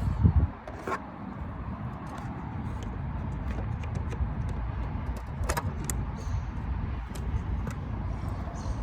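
Small sharp plastic clicks and taps as a blade fuse is worked out of a car's fuse box, over a steady low rumble.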